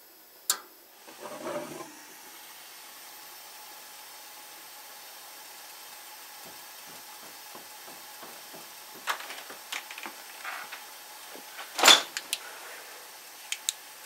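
1990 Heil gas furnace lighting: a sharp click from the gas control valve opening, then the burners catch with a short low whoomp about a second later and settle into a steady gas-flame hiss. Several clicks and knocks come in the second half, the loudest near the end.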